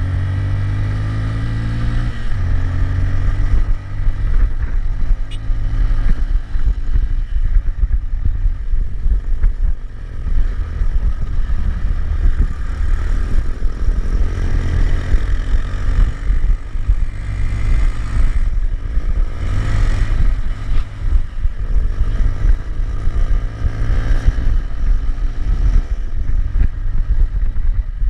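Bajaj Pulsar NS200's single-cylinder engine under way, its pitch climbing as it accelerates and dropping at each upshift, several times over. Heavy wind rumble on the microphone from riding speed runs beneath it.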